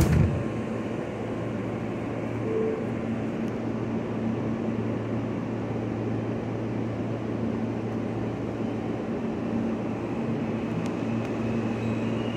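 Subway car doors closing with a thump, then the R160 train starting to pull out of the station, its motors humming steadily under the rumble of the car.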